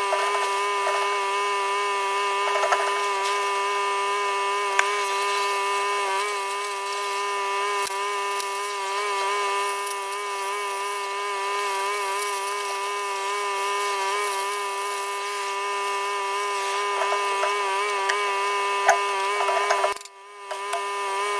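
A power tool's motor running at a steady high pitch, with a few sharp knocks along the way; it drops out briefly near the end and comes back.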